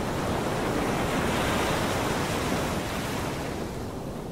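A rushing wash of noise like breaking surf, swelling to a peak about two seconds in and then slowly fading. It is the sound effect laid under an end logo card.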